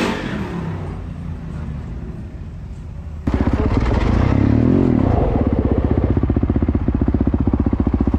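Dirt bike engine, likely a 450 four-stroke: softer engine noise at first, then about three seconds in, a loud close-up engine comes in suddenly. It revs up and back down once, then runs on with a steady, fast pulse.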